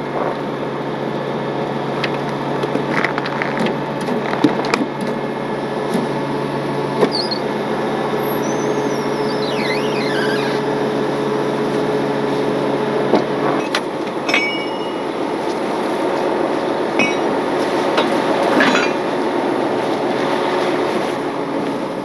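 Heavy wrecker's engine running steadily, with the engine note changing about two-thirds of the way through. Scattered metal clinks and knocks, and a brief squeak, come from the underlift and its fork hardware being set under the pickup's rear.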